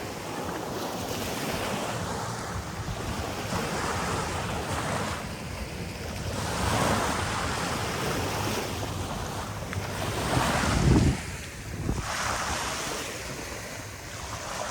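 Small sea waves washing up and drawing back on a sand beach, the surf swelling and fading every few seconds, with wind buffeting the microphone; one strong gust rumbles in about two-thirds of the way through.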